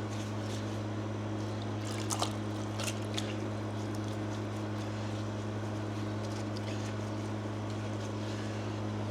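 Baking soda solution fizzing faintly on battery-acid residue as it neutralises it, with a few small taps about two to three seconds in, over a steady low machine hum.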